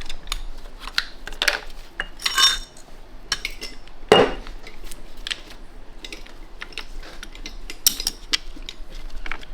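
Steel transmission parts of an NV5600 manual gearbox clinking and clanking as it is taken apart by hand, with a ringing clink about two and a half seconds in and a sharp metal knock about four seconds in.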